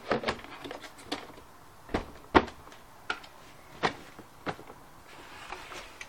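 Hard plastic parts of a Hoover Turbopower 3 upright vacuum's bag compartment and pre-filter housing being handled, with the motor off. About eight separate clicks and knocks, the loudest about two and a half seconds in.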